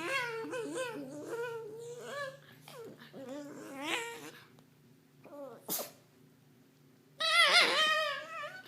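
A small dog making whining, mewing calls that rise and fall in pitch and sound like a cat. There is a quick string of short calls, a pause with a single sharp click, then one loud drawn-out call near the end.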